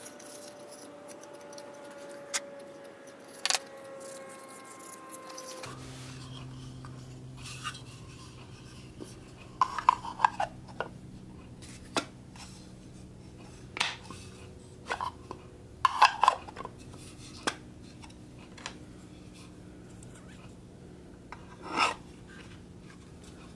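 Small wooden box being handled: a scatter of light wooden clicks and knocks as its cleated lid is lifted and fitted, with a couple of quick clusters of taps. A steady low hum comes in about six seconds in.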